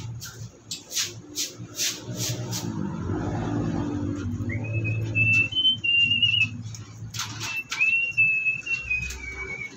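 Short scrubbing strokes on a wet concrete floor, about two a second, for the first two seconds or so. Then two long high whistles, each holding a steady pitch with small steps up and down.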